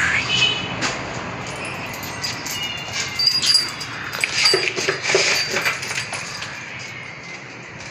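Bully Kutta dog whining in short, high whimpers, some bending in pitch, with a few clinks of its metal chain about midway.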